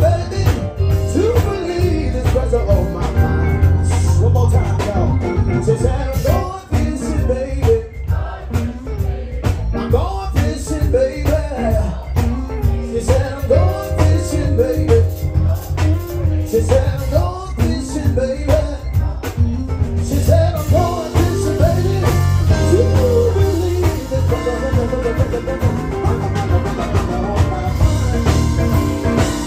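A live blues band playing, with a male singer singing into a handheld microphone over steady bass and drums.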